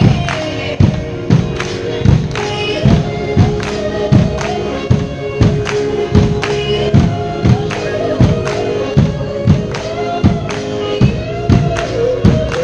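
Massed drum kits playing a steady beat, about two strokes a second, under a choir singing.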